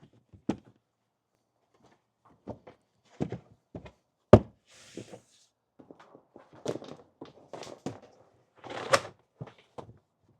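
Hollow knocks and thuds of a car's rear subfloor panel being set back in place. The loudest thunk comes about four seconds in, followed by a short scraping slide, with more scuffing and knocking near the end.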